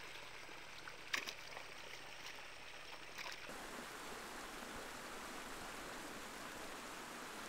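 Water trickling in a flooded rice paddy, with two sharp knocks of a hoe striking the wet mud, about a second in and just past three seconds. From about halfway, the steady rush of a rocky stream.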